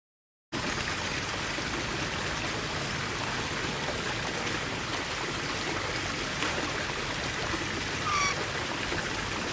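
Steady rushing noise like running water, starting abruptly about half a second in, with one short, pitched parrot chirp about eight seconds in.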